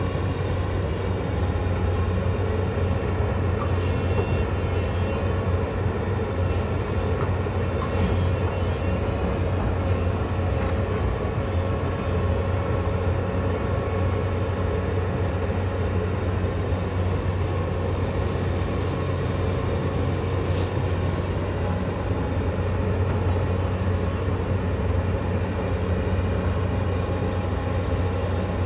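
Hyundai crawler excavator's diesel engine running steadily, with an even low drone.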